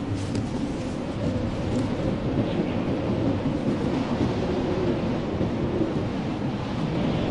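Blizzard wind blowing steadily, a deep low rushing rumble with faint scattered high ticks over it.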